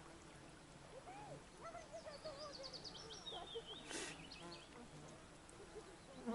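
Faint outdoor birdsong: wavering calls and a quick high trill, with a short sharp noise about four seconds in.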